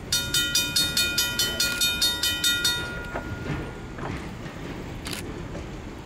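A bell ringing rapidly, about five strokes a second, which stops about three seconds in. A train rumbles low underneath, with a single short click near the end.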